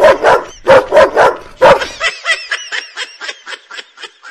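Fake dog barking: a fast series of loud barks, then from about two seconds in a run of quicker, fainter, high-pitched yelps that tail off.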